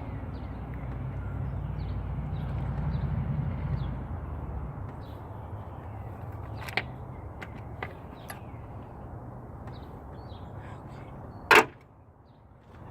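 A steady low motor hum that fades about five seconds in, a few light metallic clicks, and one sharp loud clack near the end.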